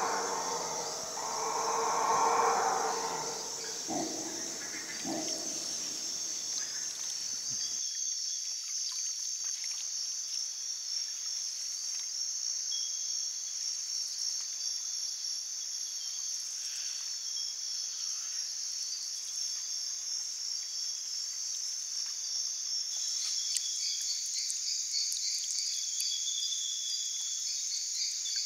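Howler monkeys roaring in the darkness, two loud swells in the first few seconds with fainter calls after, over a dense rainforest insect chorus of steady high buzzing and trilling. About eight seconds in the roaring stops abruptly, leaving only the insects.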